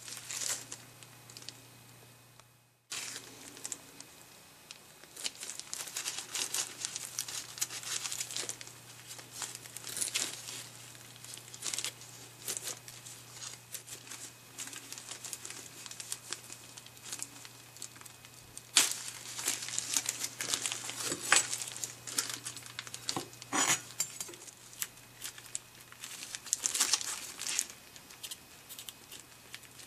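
Thin disposable plastic gloves crinkling and rustling as gloved hands work food, with a few sharper clicks along the way.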